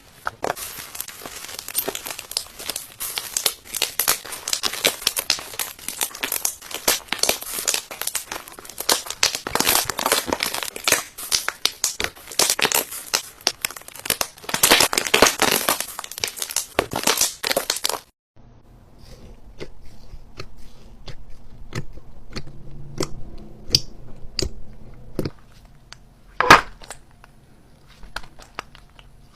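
Slime being squeezed and worked by hand, giving a dense run of crackling, crinkling pops. About two-thirds of the way in it cuts off suddenly to quieter, sparser clicks and pops, with one sharp louder pop near the end.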